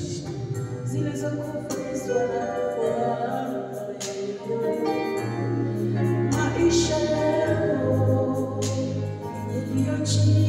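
Worship song: a man singing into a microphone over held chords from a Yamaha electronic keyboard, played through a PA.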